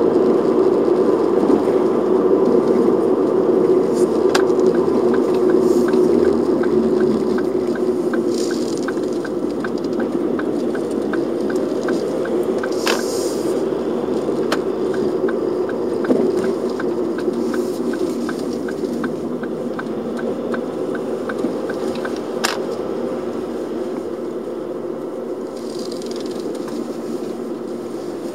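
Car interior while driving slowly: a steady engine and tyre drone, with a regular ticking of two to three ticks a second from about four seconds in to past twenty seconds, typical of the turn-signal indicator, and a couple of sharp clicks.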